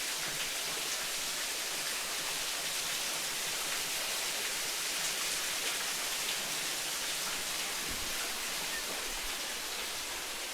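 Waterfall running steadily: an even rush of falling water.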